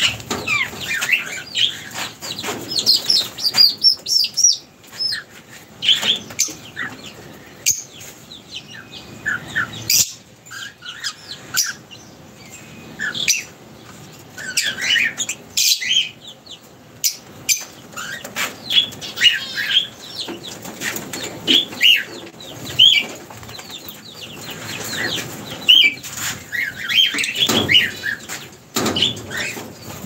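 Lovebirds chirping with many short, high calls, often overlapping, mixed with wing flutters as birds move about the aviary.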